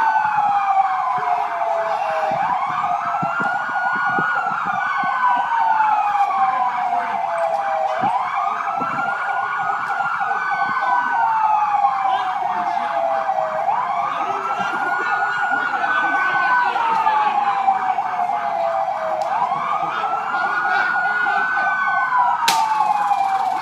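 Several emergency-vehicle sirens wailing together, out of step with one another: each rises, holds high, then falls slowly over about three seconds, with a faster warbling siren underneath. A sharp click comes near the end.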